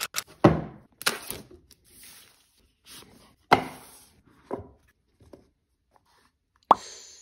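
Packaging box and lid being opened and handled on a tabletop: about half a dozen sharp knocks and thuds, with brief sliding and rubbing between them and a last knock near the end as the hard glasses case is handled.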